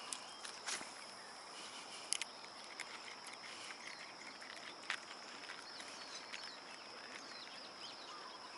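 Faint, steady high-pitched insect chirring, with a few light clicks scattered through it.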